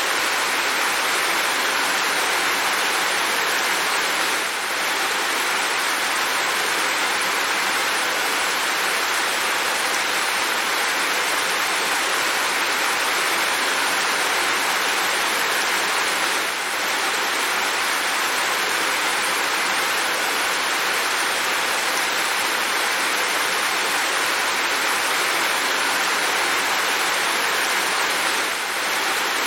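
Steady rain falling, an even hiss with three brief dips in level.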